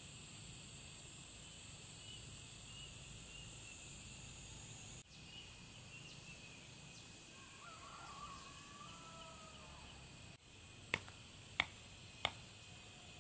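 Steady high-pitched insect drone, with a bird calling briefly in the middle, then three sharp clicks about two-thirds of a second apart near the end.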